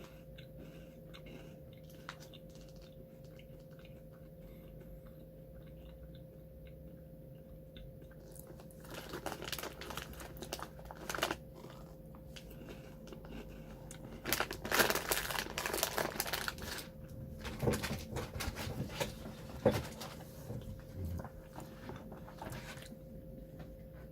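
Crunching and chewing of Tohato Caramel Corn tiramisu puffs, a crisp corn snack, bitten close to the microphone. The crunching starts about a third of the way in, after several quiet seconds with a faint steady hum, and comes in irregular bursts, loudest in the middle.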